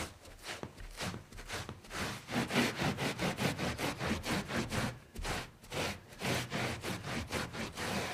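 Scrubbing a surface to clean up a spill: quick, rhythmic back-and-forth rubbing strokes, about four a second, with a brief pause about five seconds in.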